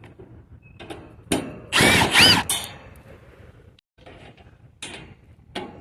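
Power drill backing screws out of the sheet-metal side panel of an HVAC condenser unit: a burst of motor whine rising in pitch about a second and a half in, with a few short clicks and taps around it.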